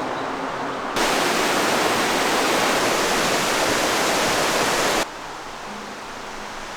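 Waterfall water rushing in a steady roar, jumping louder and brighter about a second in and dropping back abruptly near five seconds.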